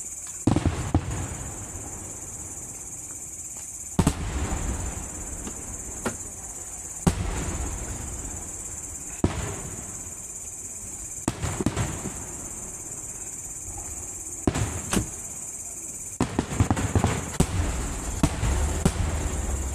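Aerial fireworks shells bursting with sharp bangs every two to three seconds, each followed by a low rumbling echo, then a quick run of many bangs over the last few seconds.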